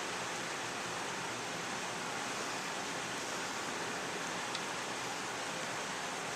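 Steady, even hiss of background noise with no engine or tool running, and one faint click about four and a half seconds in.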